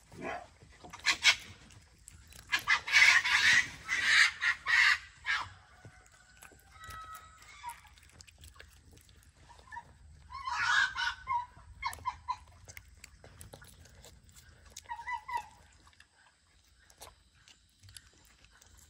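Fox vocalising with harsh, rapid chattering calls in bursts while being fed. There is one call about a second in, a long run of them from a few seconds in, another burst about halfway through, and a few short, higher calls after it.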